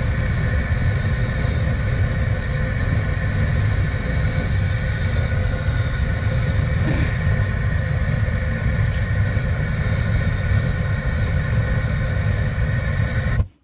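Gas torch flame burning steadily with a loud, low rushing sound, cutting off abruptly near the end.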